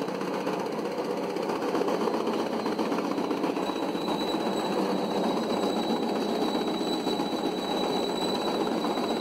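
A 3 HP high-speed chaff cutter running and chopping dry straw: a steady, fast mechanical clatter, with a thin high whine over it.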